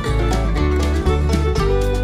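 Background music with a steady beat, played on plucked string instruments in a country/bluegrass style.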